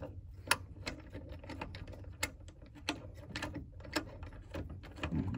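Sharp metallic clicks and ticks at an irregular pace, a click every half second to a second, as the two 13 mm shifter mounting bolts of a 1965 VW Beetle are backed out with a hand tool.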